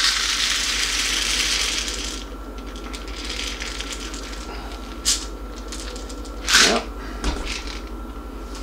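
Dry popcorn kernels pouring out of a jar into a small measuring cup, a grainy rattling hiss that tails off about two seconds in. Then a few sharp clicks and knocks as the jar and cup are handled and set down.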